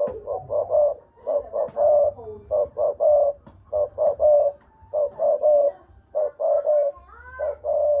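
Spotted dove cooing: repeated short phrases of two or three throaty coos each, with brief pauses between phrases.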